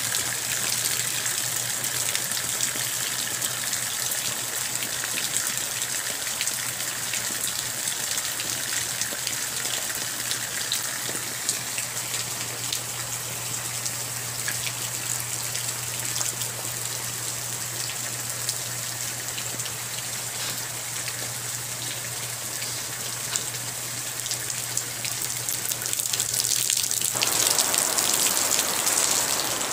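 Steady rain falling on desert scrub, a dense hiss dotted with countless small drop ticks, over a low steady hum. Near the end the hum stops abruptly and the rain comes in louder.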